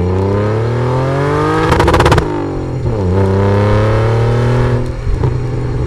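Car engine accelerating hard through the gears: the revs climb steadily, a brief rapid crackle comes about two seconds in, and the pitch drops at a gear change near three seconds before climbing again.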